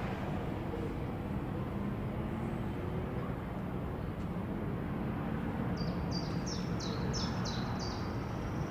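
A songbird singing a run of about eight quick, high notes, each sliding downward, starting about six seconds in, over a steady low background rumble.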